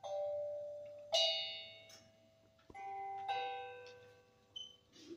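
Slow, separate notes on a pitched musical instrument, each struck and left to ring out and fade, about one a second, with a lower note near the middle.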